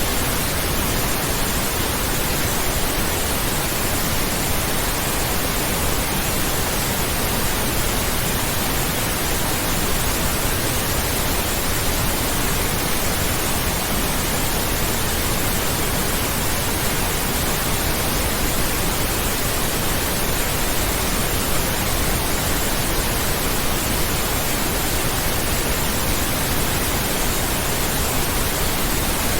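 Pink noise: a steady, unchanging hiss spread evenly across the whole range, used as a tinnitus masker.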